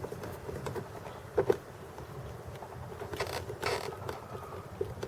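Light clicks and knocks of a taillight housing being handled, with a short scraping rasp about three seconds in as its Phillips screw is driven in and snugged.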